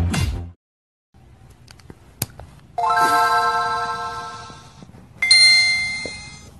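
Background music cutting off about half a second in, then a two-tone ding-dong chime: a lower tone rings out and fades, and about two and a half seconds later a higher, brighter tone rings out and fades.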